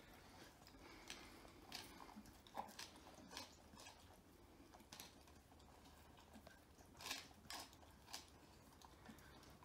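Rottweiler-mix dog eating from an earthenware bowl on a tile floor: faint, irregular crunches and clicks of chewing and of food knocking in the bowl.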